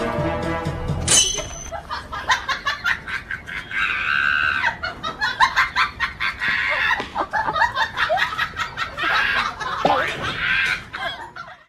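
Background music for about a second, then it changes abruptly to a dog-and-chicken scuffle: chickens squawking amid many sharp clatters, with a few short falling cries near the end.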